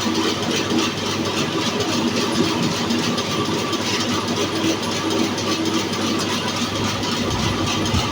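Electric horizontal band sawmill running steadily, its blade cutting through a mahogany log with a constant hum under a noisy rasp.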